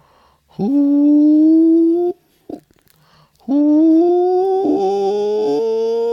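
A man's voice holding long wordless hummed tones: one note from about half a second in lasting a second and a half, then after a pause a second long note that slowly rises in pitch, with a lower note sounding under it for about a second near the end.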